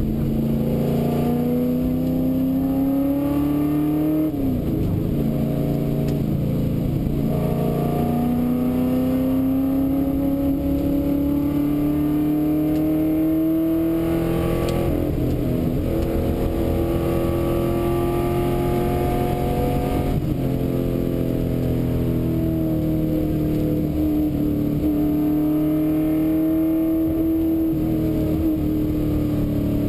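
Ford XY Falcon GT replica's engine heard from inside the cabin under hard driving on a tarmac rally stage. The revs climb, drop sharply about four seconds in, climb again and hold high through the middle, dip again around twenty seconds and ease down near the end.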